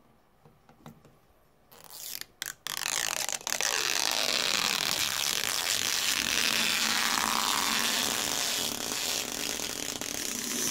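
Protective plastic film being peeled off a new oven control keypad: a few faint clicks, then a long, steady rasping rip that starts about two seconds in and runs for about nine seconds.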